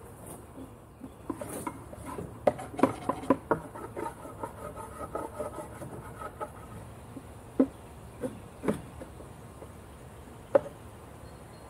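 Honeybees buzzing around the hive, one passing close for a few seconds. Scattered sharp knocks and taps over the buzzing: a quick cluster about two and a half seconds in, then single knocks later.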